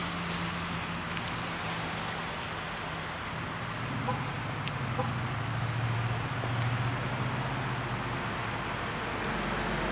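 2004 Mazda3's four-cylinder engine idling steadily through a Mazdaspeed3 cat-back exhaust with a race pipe in place of the catalytic converter: a low, even hum.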